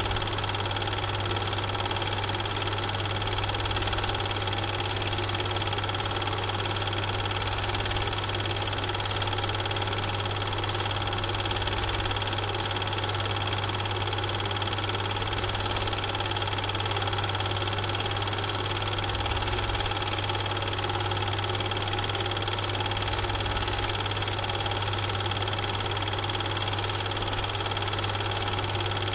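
Steady whirring drone of a Super 8 film projector running, with a constant low hum and several steady tones above it, unchanged throughout. The film itself is silent, so none of the train's sound is heard.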